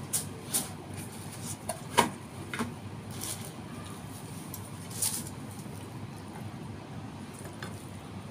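Kitchen utensils knocking lightly against a frying pan: a few sharp clicks, the clearest about two seconds in, over a steady low hum.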